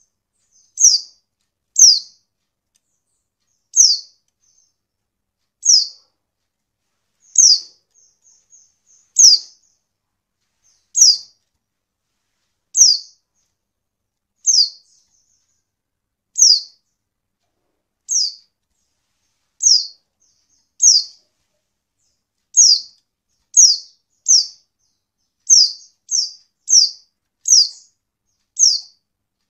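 A white-eye (pleci), which the uploader gives as a female calling to draw males into song, giving short high chirps that sweep downward, one every second or two. Near the end the chirps come faster, about twice a second, with a few faint twitters between them.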